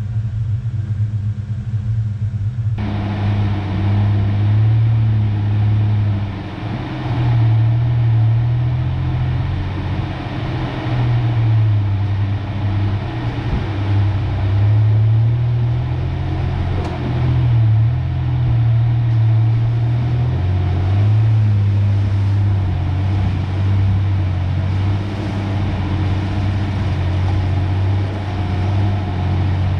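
A 1993 Ford Ranger pickup's engine running at a low, wavering pitch as the speed and load change while driving, with tyre and road noise. The road noise steps up suddenly about three seconds in.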